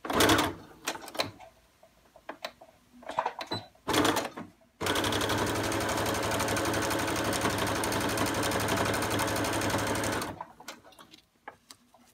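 Sewing machine stitching a straight seam through terry towelling: two short bursts of stitching in the first few seconds, then a steady run of about five and a half seconds that stops near the end, with light clicks of the fabric being handled in between.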